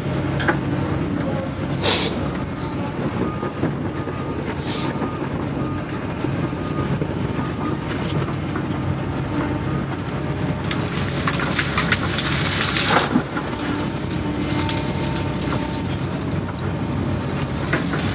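Doosan excavator's diesel engine running steadily, heard from inside the cab, while the bucket drags brush. A few clicks, then a stretch of crackling and snapping twigs and branches about two-thirds of the way through.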